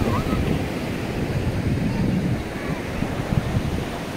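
Surf breaking and washing up a sandy beach, with wind buffeting the microphone in an uneven low rumble.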